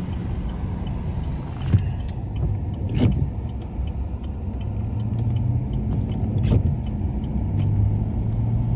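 Car driving on a wet street, heard from inside the cabin: a steady engine hum and road rumble. The hum swells about halfway through and again near the end, with a few light knocks.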